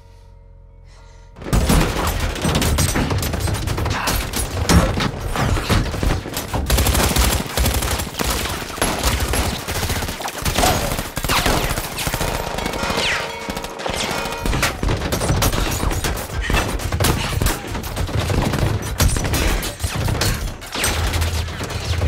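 Long, dense volley of automatic gunfire, with bullets striking the car's windows. It begins suddenly about a second and a half in.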